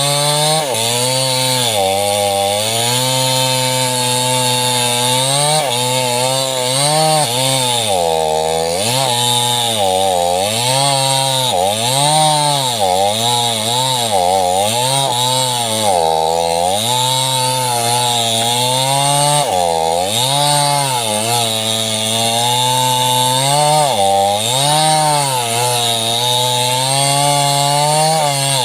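Small chainsaw running at high revs and cutting sengon wood, its engine pitch dipping and recovering again and again as the chain bogs under load.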